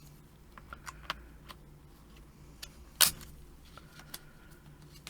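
Laptop RAM modules being fitted into their memory slots: scattered light clicks and taps, with one sharp click about three seconds in.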